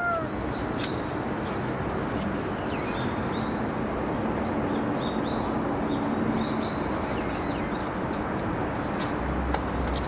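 Small birds chirping in short, high calls, scattered through and busiest a little after the middle, over a steady hiss of outdoor background noise. A low rumble comes in near the end.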